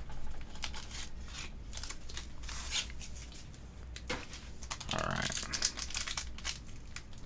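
Pokémon card blister pack being torn open: cardboard and plastic packaging crinkling and tearing in a series of short, irregular crackles, with a longer rustle about five seconds in.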